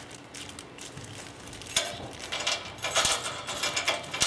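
Loose bolts and nuts from a furniture hardware bag clinking and rattling together as they are handled, in a run of sharp metallic clatters starting about two seconds in.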